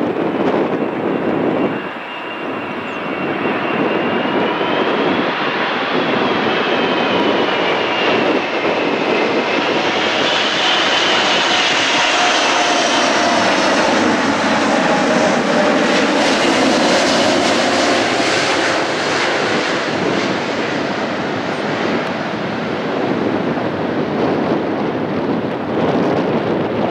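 Emirates Airbus A380 jet airliner on approach, its four jet engines running loud and steady. A high whine rises and falls in pitch as the aircraft comes closer and passes.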